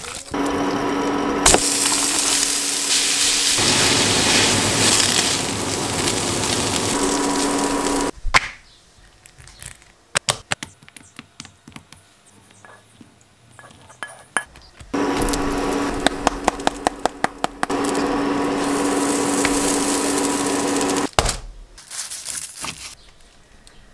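Kitchen food-preparation sounds: two long stretches of loud, steady hiss with a faint hum, broken by a run of sharp clicks and taps, and a few light taps near the end.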